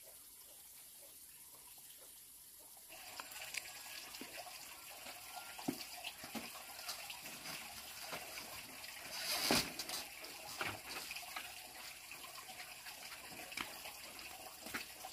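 Water running and trickling, starting abruptly about three seconds in, with scattered small knocks and one sharp knock or splash about halfway through.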